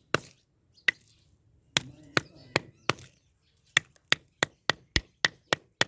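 A series of sharp, hard strikes, like chopping or hammering blows, about fourteen in all. They are spaced unevenly at first, then come quicker and evenly, about three a second, over the last two seconds.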